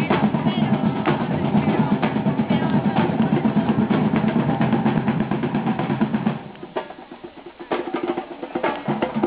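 Percussion music on drums, with snare rolls and rapid hits. About six seconds in it drops to quieter, sparser strokes, then picks up again near the end.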